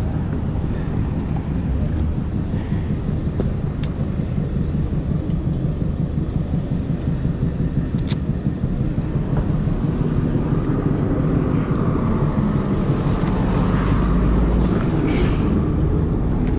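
Steady road-traffic rumble of a city street, with a single sharp click about eight seconds in and a heavier low rumble swelling near the end.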